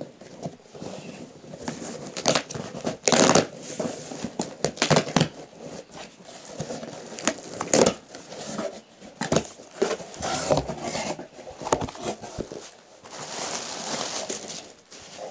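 Cardboard shipping box being torn open by hand: the tape and flaps rip in a series of separate tears with crackles between them, then packaging crinkles for a couple of seconds near the end.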